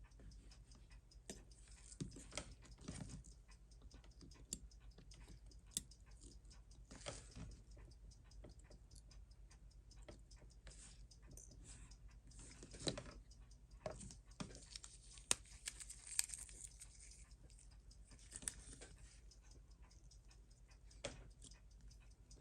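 Faint, irregular small clicks and brief scrapes of metal watchmaking tools handling parts of a Seiko 7548 quartz movement being taken apart on the bench, over a low steady hum.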